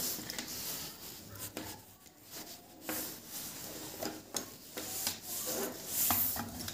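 Irregular light rubbing and scraping as wires and a small circuit board are handled and shifted on a wooden tabletop, with a few soft taps.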